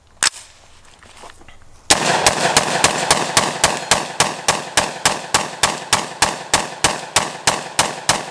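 Short-barrelled AR-15 pistol firing: one shot, then after a pause of about a second and a half a long rapid string of shots, about four a second, each report echoing into the next.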